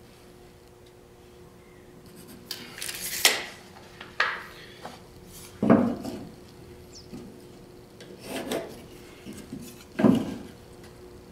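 Marking tools handled against drywall: a few short scrapes and knocks, a second or two apart, as a plastic speed square is set against the wall and a pencil draws lines along it, with rubbing in between.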